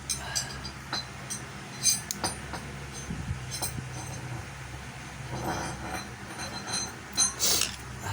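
Scattered clicks and clinks of small tools and plug parts being handled during an extension-cord plug repair, loudest about two seconds in and near the end, over a steady low hum.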